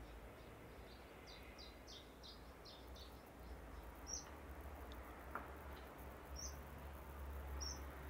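Canary Islands chiffchaff singing faintly: a quick run of short, falling high notes over the first three seconds, then three single high chirps spaced through the rest, over a low steady hum.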